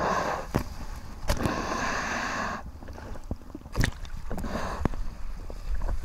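Sea water rushing and splashing around a surfboard and a waterproof action-camera housing as the board pushes through whitewash, in two surges in the first half. Sharp knocks of water slap against the housing now and then, over a low rumble.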